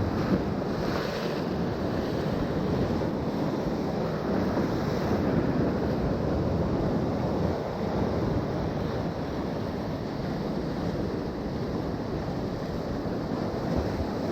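Steady wash of sea waves, with wind noise on the microphone.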